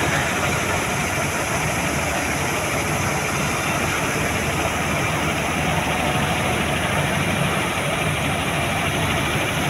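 A mobile crane's diesel engine idling steadily.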